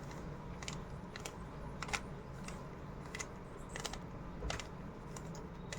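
Rubik's cube faces being turned by hand: a series of light plastic clicks, roughly every half second, as the layers snap round through a repeated move sequence.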